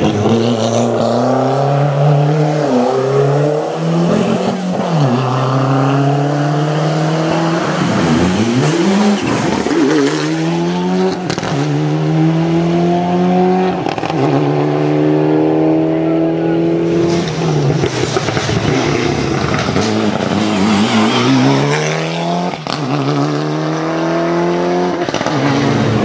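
Rally cars' engines at full throttle, climbing in pitch through each gear and dropping at every upshift, over and over, with some tyre squeal.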